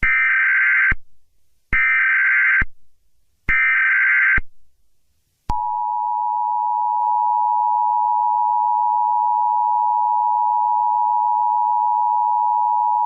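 Emergency Alert System alert: three SAME header data bursts, each about a second of buzzing digital tone, then the two-tone EAS attention signal, a steady dual tone held for about eight seconds.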